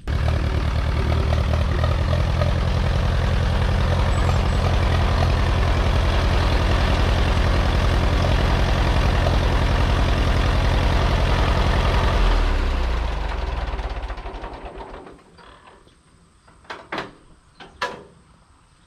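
Allis-Chalmers WD tractor's four-cylinder engine running with a fast, even low pulse. The owner says it runs poorly and the engine needs replacing. About twelve seconds in, the engine sound dies away, and a few sharp knocks follow near the end.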